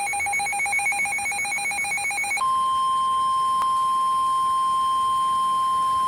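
Emergency weather-radio alert signalling a tornado warning. A rapidly pulsing two-pitch electronic alarm switches, about two and a half seconds in, to one steady unbroken tone: the NOAA Weather Radio warning alarm tone.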